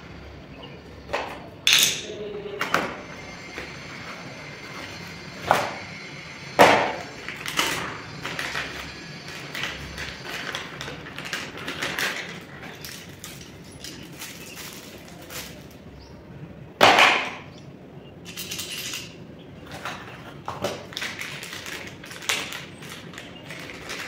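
Unpacking a mortise door lock set: plastic bags rustling and tearing, with metal lock parts clinking and knocking against the cardboard box. The noises come in irregular bursts, the loudest about two, seven and seventeen seconds in.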